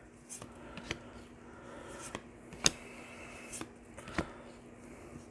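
Trading cards handled in gloved hands, slid and flicked against one another: about six sharp clicks and snaps, the loudest about halfway through, over a faint steady hum.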